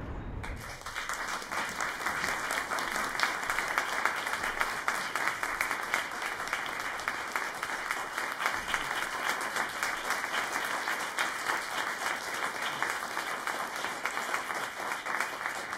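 Audience applauding steadily, a dense patter of many hands clapping that starts abruptly about half a second in.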